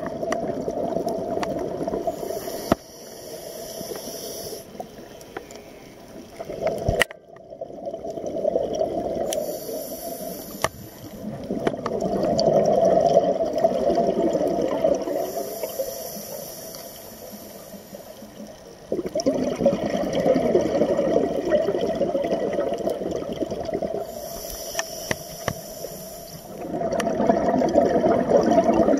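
A scuba diver's breathing heard underwater: a short hiss of inhaling through the regulator, then a long burbling rush of exhaled bubbles, repeating every five to six seconds. There is a single sharp click about seven seconds in.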